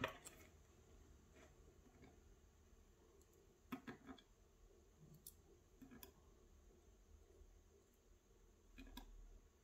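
Faint, light clicks of metal tweezers and small lock pins tapping against the brass core of a tubular lock as the pins are set back into their chambers. A few scattered clicks, with a small cluster about four seconds in and single ones around six and nine seconds.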